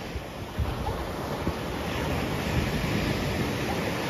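Surf washing and breaking onto a sandy beach, with wind buffeting the microphone in uneven low rumbles.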